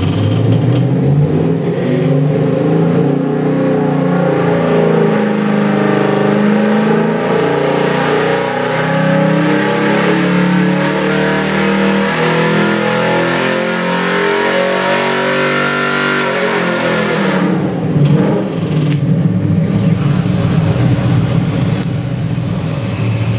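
Chevy 383 stroker small-block V8 with MSD Atomic EFI pulling a wide-open-throttle sweep under load on an engine dynamometer, its pitch climbing steadily for about sixteen seconds from low rpm past 4,700 rpm. It then comes off the throttle, with a brief louder moment, and drops back to idle for the last few seconds.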